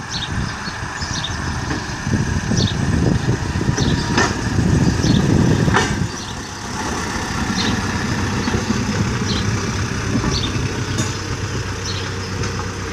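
Model T Ford railcar's engine running as the railcar pulls off the turntable and moves slowly along the track, a steady low rumble that swells from about two seconds in and eases a little after six seconds. Short high chirps sound over it throughout.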